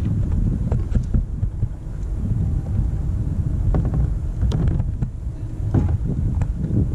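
Wind buffeting the microphone in a low, continuous rumble, with a few light clicks or small splashes scattered through it.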